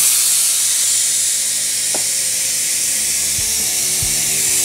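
Vacuum brake bleeder hissing steadily as it sucks the excess oil out of an overfilled dry sump oil tank.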